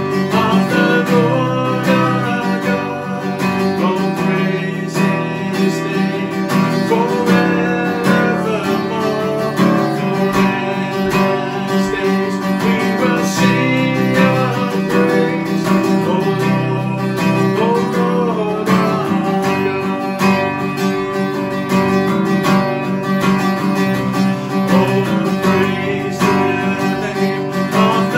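A man singing a slow worship song, accompanying himself on a strummed acoustic guitar.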